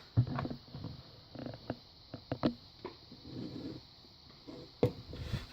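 Handling noise as a vise is moved: irregular knocks and clicks, with a few sharper knocks, the loudest near the start and just before the end.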